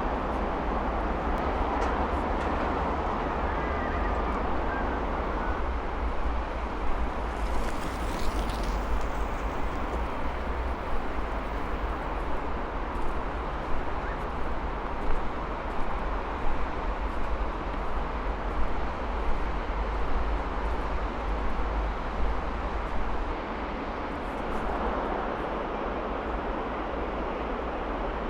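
Steady roar of traffic from a busy city avenue, with a deep low rumble under it and irregular louder peaks in the middle.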